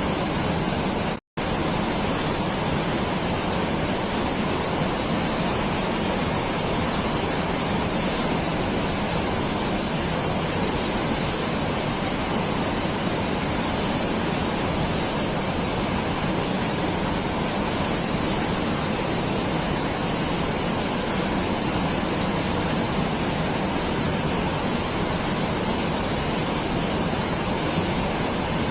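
Steady, even rushing noise with no pitch or rhythm, cut off for an instant about a second in.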